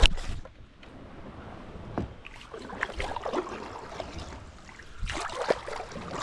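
Kayak paddling: paddle strokes splashing in creek water, with short scattered splashes that get busier about five seconds in.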